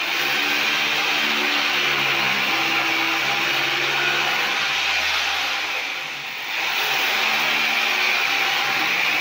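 Electric rotary hammer running with its bit chipping into concrete, a loud, steady motor-and-hammering noise. It stops briefly about six seconds in and starts again.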